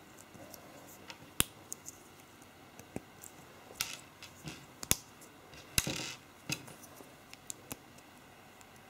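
LEGO Technic plastic parts clicking as pins and a red panel are pressed and snapped together by hand: irregular sharp clicks, with a few louder snaps and a brief rattle of handled pieces about six seconds in.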